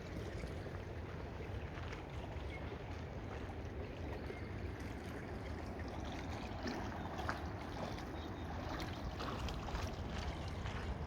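Steady rush of flowing, splashing water, with scattered small clicks and ticks over it.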